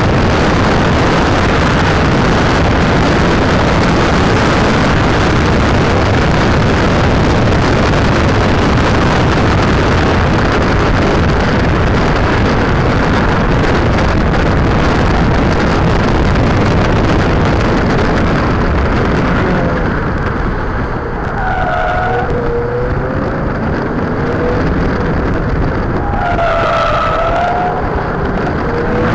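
Onboard sound of a car lapping a race circuit, picked up by a small keychain camera's microphone: heavy wind and road noise over the engine at speed. In the last third the rush eases and the tyres squeal briefly twice through the corners.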